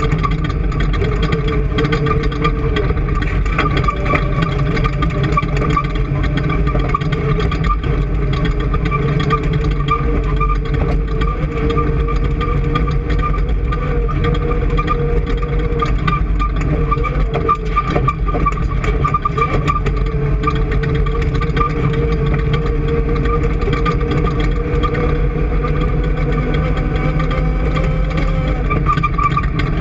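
An engine running steadily at a constant speed: a loud, unbroken drone whose pitch wavers only slightly.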